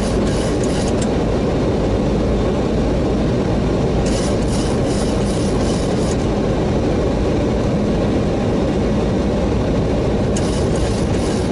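Steady loud rush of airflow and engine noise in an airliner cockpit on final approach, with the landing gear down and flaps extended, in hurricane-force wind. Three short spells of high crackling come over it.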